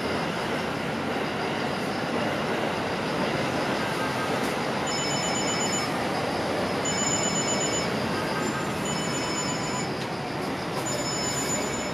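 Steady outdoor background noise, with short bursts of high, rapidly pulsed chirping that come and go several times.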